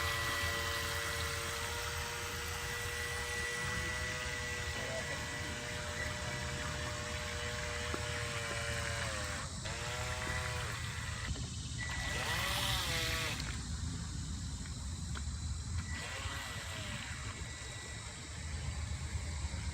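Electric RC speed boat's motor whining on the water, steady for several seconds, then rising and falling in pitch in short swells as the throttle is worked, with a thin high steady tone over a low rumbling background.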